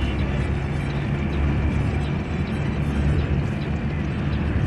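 Bus engine and road noise heard from inside the moving bus: a steady low rumble.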